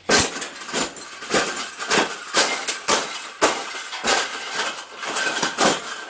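A bird cage being bent and folded into shape by hand: irregular bangs and clanks, about two a second.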